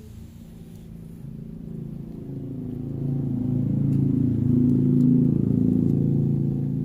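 A motor engine running with a low, even hum that grows louder over the first few seconds and then holds steady.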